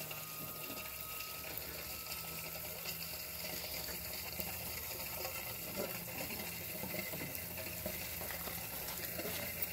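Steady bubbling and rushing of water as a DIY venturi on a submersible aquarium pump streams air bubbles up through the tank water, with a faint low hum underneath.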